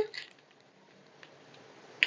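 Near silence with a faint click about a second in and a few soft ticks near the end: light handling of small plastic bags of diamond-painting drills.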